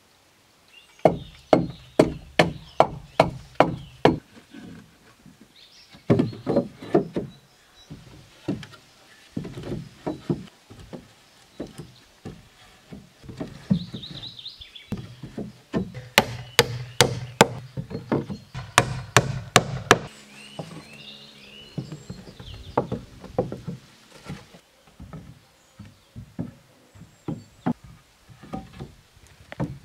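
Repeated sharp knocks of a hand tool striking wood, coming in runs of about three blows a second with pauses between the runs.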